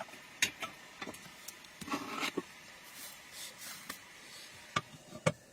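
About ten irregular sharp knocks and clicks, the loudest about half a second in and twice near the end, with a short cluster of them around two seconds in.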